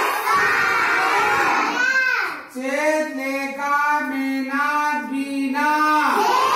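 A class of young children chanting together in unison in a drawn-out sing-song, with a brief break about two and a half seconds in.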